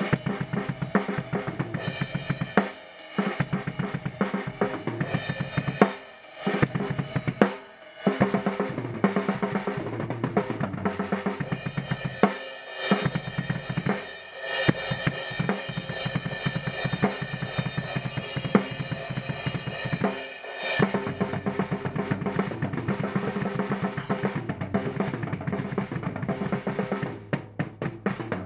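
Acoustic drum kit played freely, with no set song: bass drum, snare, hi-hat and Zildjian crash and ride cymbals in dense, fast patterns, broken by a few short pauses.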